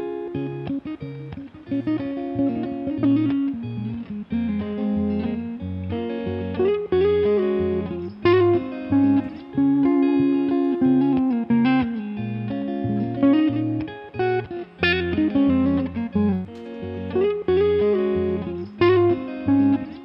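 Instrumental background music led by guitar, a quick run of short plucked notes over a pulsing bass line.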